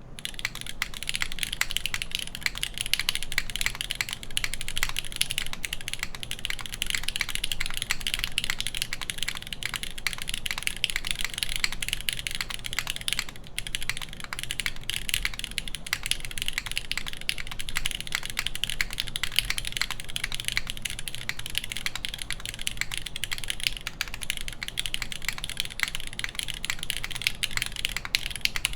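Continuous typing on a SINGAKBD Kohaku mechanical keyboard with lubed, broken-in Cherry MX Black linear switches in an aluminum plate under GMK keycaps. The keystrokes come as a dense run of clacks, with a short pause about halfway through.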